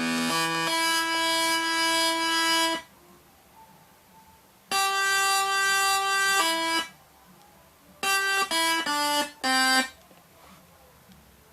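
Electronic sound-effects synthesizer sounding steady pitched tones with quiet gaps between them: a long held note, a second held note that drops to a lower pitch near its end, then a quick run of four short notes stepping down in pitch.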